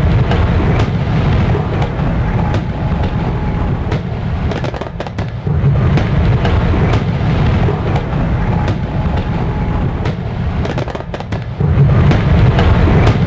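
Fireworks going off in a continuous barrage: deep rumbling booms with showers of sharp crackles, swelling louder about halfway through and again near the end.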